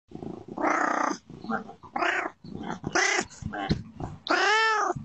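Domestic cat meowing repeatedly, picked up by a doorbell camera's microphone, with a series of short meows and a final long, drawn-out meow that rises and then falls in pitch.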